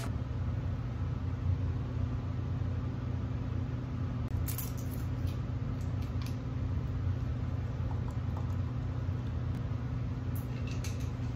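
A steady low hum runs through the whole stretch. Faint clicks and rustles of handling come about four and a half seconds in and again near the end.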